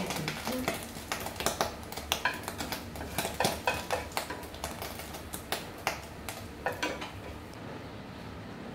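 A cooking utensil clicking, tapping and scraping against a frying pan as fried eggs are worked in it, with irregular sharp ticks that die away about seven and a half seconds in.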